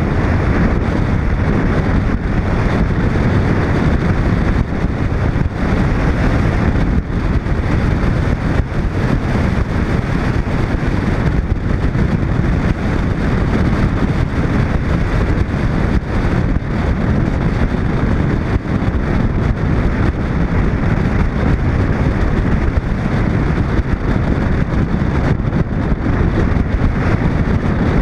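Steady wind rush buffeting a camera microphone mounted on the outside of a moving 1941 Chevy, mixed with the car's road noise as it drives along at speed.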